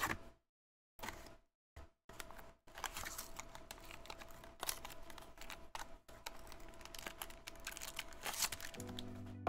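Plastic shrink wrap being torn and crinkled off a trading-card box by gloved hands: a few handling clicks, then a dense crackling full of sharp snaps from about two seconds in. Background music comes in near the end.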